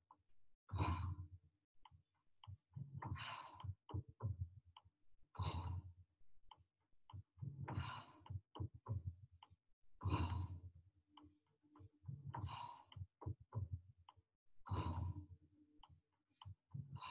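A woman breathing hard in a steady rhythm, about one breath every two to two and a half seconds, in time with a repeated knee-in, leg-back exercise. Faint short clicks fall between the breaths.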